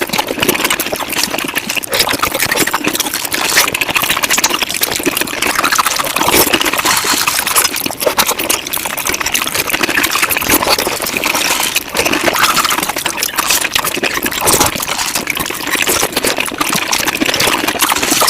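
Close-miked mukbang eating sounds sped up to five times normal speed: chewing, smacking and slurping merged into a dense, continuous rapid crackle of wet mouth noises.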